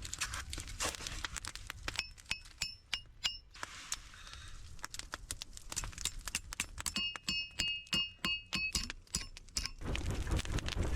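Hammer striking a heated steel rod on a small stump anvil: quick runs of blows, several a second, each one ringing briefly with a bright metallic tone.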